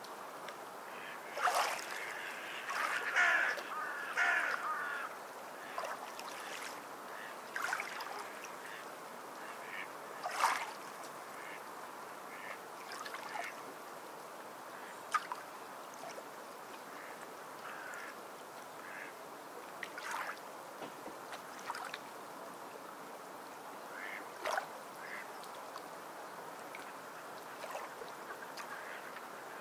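Coloured pencil scratching across a paper tile in short, irregular strokes, busiest in the first few seconds, over a steady background hiss.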